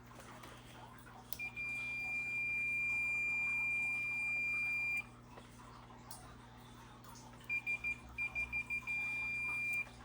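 Continuity meter beeping: one long steady high tone for about three and a half seconds, then a few short stuttering beeps that settle into a steady tone near the end. The beep signals a closed circuit between the test probes.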